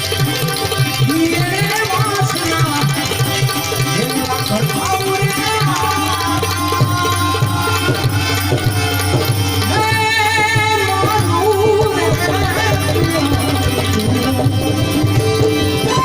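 Live Indian devotional music: a tabla keeps a steady rhythm under a wavering melody line.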